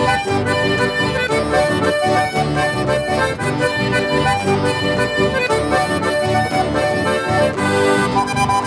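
Button accordion playing a lively instrumental melody, backed by strummed guitars and bass.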